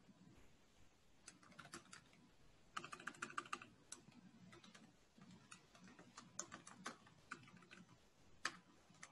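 Faint typing on a computer keyboard: a quick run of keystrokes about three seconds in, then scattered single keystrokes.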